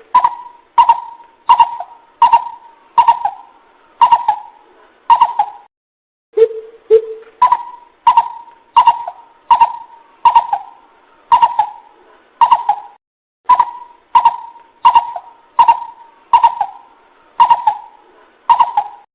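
Coucal (bubut) hooting: a lure-call recording of even, hollow hoots at about one and a half per second. They come in runs, each opening with a couple of lower notes before stepping up in pitch. Each hoot starts with a sharp click.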